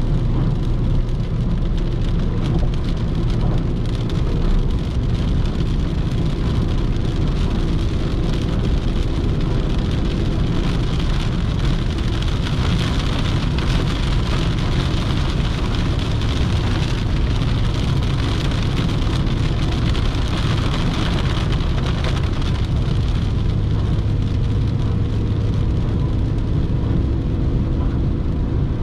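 Renault Clio IV's 1.2 TCe turbocharged four-cylinder petrol engine humming steadily at highway cruising speed, under a constant rush of tyre and wind noise.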